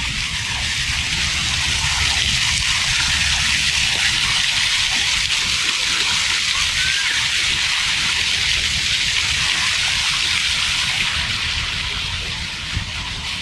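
Fountain jets splashing into their basin: a steady, loud hiss of falling water that eases a little near the end.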